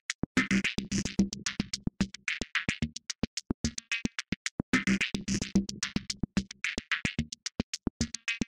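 Electronic music: a fast run of short, evenly spaced drum-machine hits with synthesizer phrases that come in and drop out in repeating passages.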